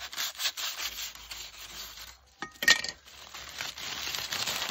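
Aluminium foil crinkling and tearing as a cleaver slices through the wrapping and hands peel it open. A short, loud metallic scrape with a brief ring comes about two and a half seconds in.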